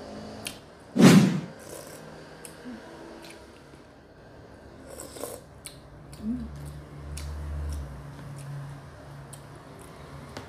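Eating sounds: a metal spoon scraping and tapping in a plastic food container, with short clicks throughout and one louder sudden sound about a second in.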